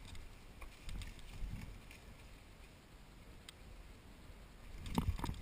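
Footsteps of an airsoft player walking, irregular low thumps with a few faint clicks, becoming louder and heavier near the end.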